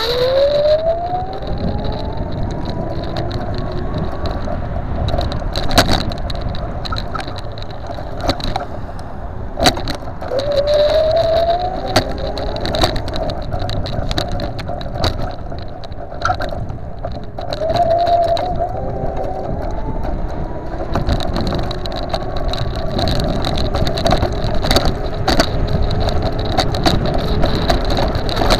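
Custom dual-motor 48 V electric scooter riding along a paved footpath. Its motor whine rises in pitch as it accelerates at the start, and again about 10 and 18 seconds in. Underneath are a steady high whine and a low rumble from the wheels, with frequent knocks and rattles as it goes over bumps.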